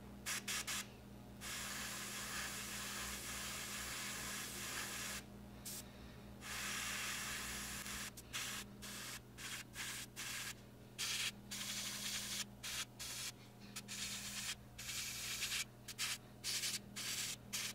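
Airbrush spraying in bursts of hiss: long passes for the first several seconds, then short quick bursts about once or twice a second from about eight seconds in, as paint goes onto a small propeller.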